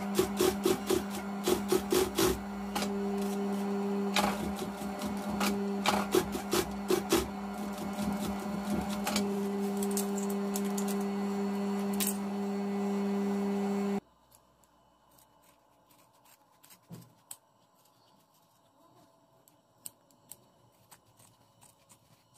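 Juki industrial sewing machine stitching a leather sandal strap: quick runs of needle clicks over the steady hum of its motor. The clicks die out about ten seconds in while the motor keeps humming, then everything stops abruptly about fourteen seconds in, leaving only a few faint taps.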